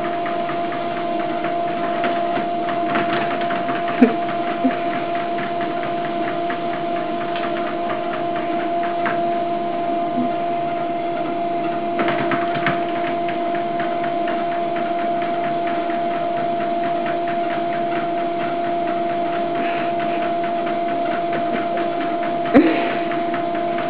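Electric treadmill running: a steady motor whine with the belt ticking over, and a couple of sharp knocks about four seconds in and near the end.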